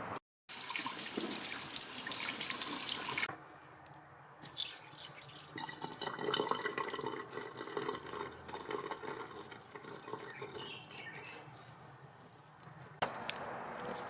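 Water running from a tap into a sink for a few seconds, then stopping. Quieter clicks and clinks of handling follow, and the water runs again near the end.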